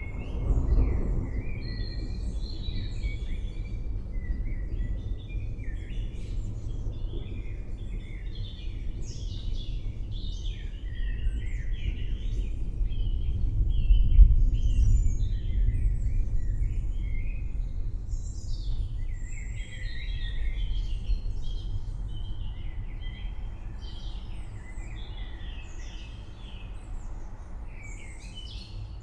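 Thunder rumbling low and continuously, swelling to its loudest about halfway through. Many birds chirp over it throughout.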